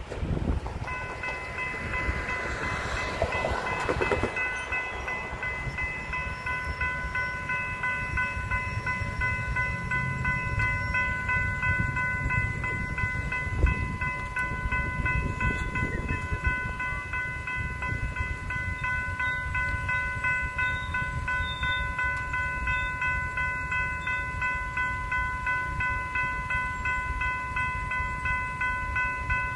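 Railroad crossing warning bell starting to ring about a second in and then ringing steadily as the crossing signals activate for an approaching train. Wind rumbles on the microphone underneath.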